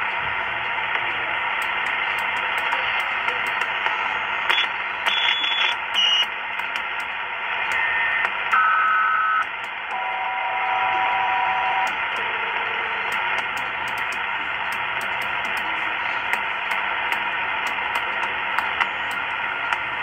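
Super Star 2000 CB radio receiving, its speaker hissing with static as the channel selector is turned. A few held tones come through between about four and twelve seconds in, each lower than the last. Light clicks from the channel knob are heard throughout.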